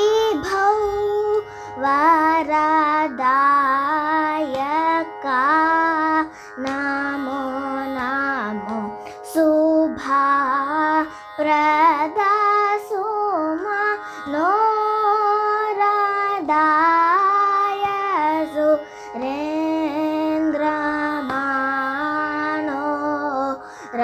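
A young girl singing a Carnatic geetam in short phrases with gliding, ornamented pitch bends, over a steady drone.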